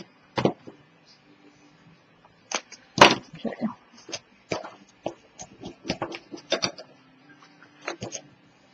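Hands handling stiff chipboard pieces and a bone folder on a cutting mat: a scattered string of light clicks and taps, the loudest about three seconds in.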